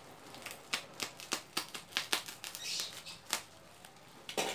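Toy packaging being opened by hand: a quick run of sharp crackles and clicks, then one louder click near the end.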